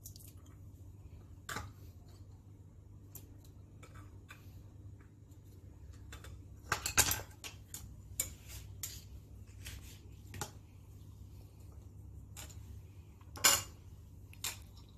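Light clicks and clinks of chopped cashews and almonds being picked from a small ceramic bowl and scattered over a plate of salad, with two louder clatters of crockery, about seven seconds in and near the end.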